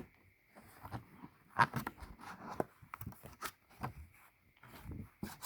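Coins being handled and pressed into the holes of a coin album: scattered sharp clicks, taps and short scraping rustles.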